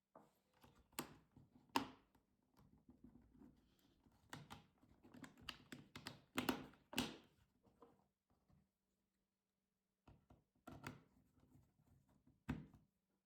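Plastic parts of an HP Pavilion 17-f laptop being handled by hand: irregular sharp clicks and taps with light scraping, and a pause of about two seconds past the middle.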